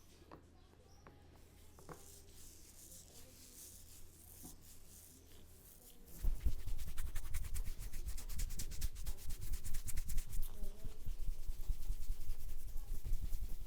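Hands working rapidly over a person's head and hair during an Indian head massage: a fast, even run of strokes with dull thuds, starting suddenly about six seconds in after a stretch of soft rubbing and a few faint clicks.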